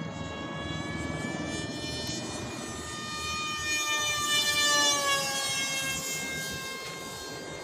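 Brushless electric motor of a homemade styrofoam RC Sukhoi jet model whining as the plane flies past overhead. The pitch rises slightly, then drops as it passes. It is loudest about four to five seconds in.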